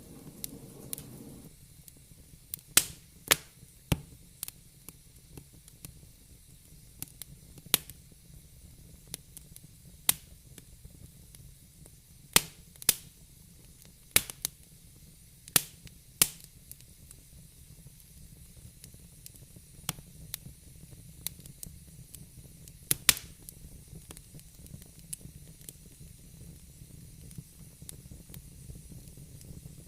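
Fire in a fireplace crackling: sharp, irregular pops over a low, steady rush of flame. The pops come thick and loud for most of the stretch and thin out near the end.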